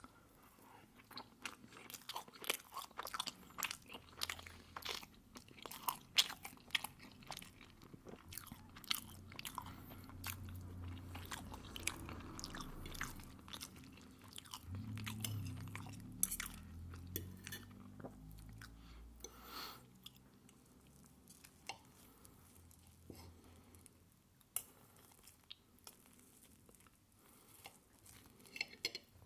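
Close-miked eating of pancake with maple syrup: steady chewing with many sharp, wet mouth clicks, busiest in the first two-thirds and sparser near the end.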